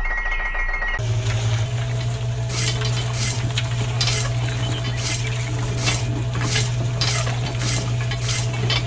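Small electric motor of a toy paddle-wheel machine humming steadily from about a second in, while the wheel's paddles scrape through sand in a rhythmic swish about twice a second. Before it, a short high electronic tone.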